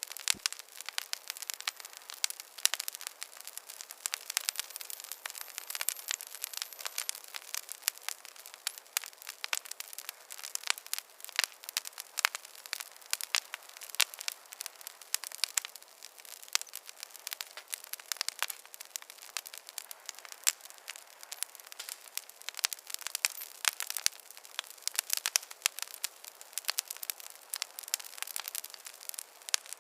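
Wood fire crackling in a fireplace: a steady hiss with many sharp, irregular pops and snaps.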